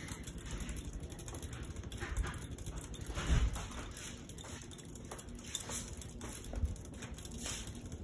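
Hampton Bay Gazebo II 42-inch ceiling fan running, its spinning blades making a steady air noise with a fast, even pulsing. Two short low thumps come about three seconds in and again near seven seconds.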